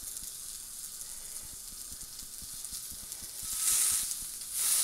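Beef burger patty sizzling in a thin carbon-steel non-stick frying pan with no oil. A steady hiss swells louder twice near the end.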